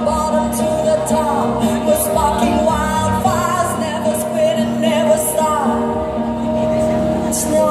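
A pop song playing, a singer's voice over held notes and a steady backing.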